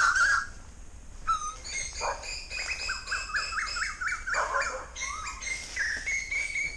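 Birds calling: a quick run of short rising chirps, about four a second, then a steady higher whistled note near the end.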